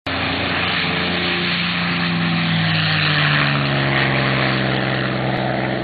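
Propeller aircraft piston engine running steadily, its pitch sinking slowly in the second half.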